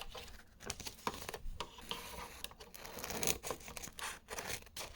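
Paper label stock from a label-printer roll being cut and handled: an irregular run of crinkling, tearing sounds.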